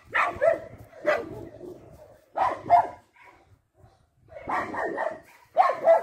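Dog barking repeatedly, some barks in quick pairs, with a short pause around the middle.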